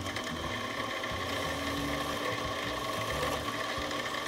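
Harbor Freight mini metal lathe running steadily, its motor and gear train giving a constant whine, while a flat file is held against the edge of the spinning aluminium part to take off the burr.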